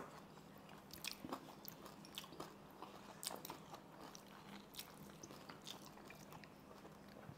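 Faint close-up crunching and chewing: someone biting into and eating crispy pata, the deep-fried pork leg's crackling skin giving scattered small crisp clicks.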